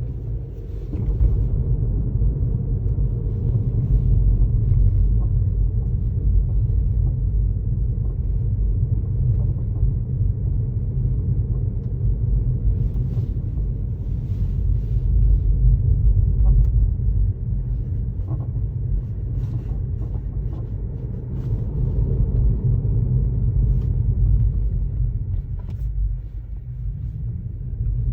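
Tesla Model 3 driving, with a steady low rumble of road and suspension noise. Faint brief squeaks come now and then; the owner traces the squeak to the driver-side front control arm.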